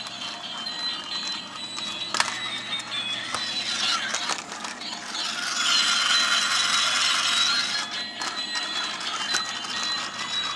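Walking toy dogs' small battery motors and plastic gear trains whirring and clicking as their legs step, with thin steady high tones over the rattle. The mechanism gets louder for a few seconds in the middle while one dog is held up and its legs run free.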